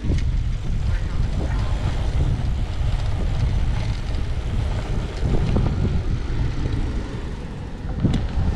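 Wind buffeting the microphone: a steady, fluctuating low rumble, with a brief click near the end.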